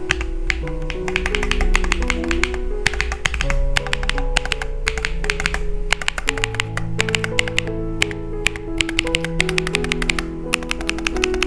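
Rapid, continuous typing on an Epomaker X Feker Galaxy80 mechanical keyboard: a dense run of key clicks, with background music playing under it.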